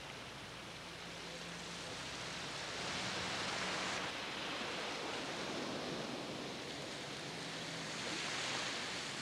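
Small waves washing onto a sandy beach: a steady hiss of surf that swells a little twice, about three seconds in and again near the end.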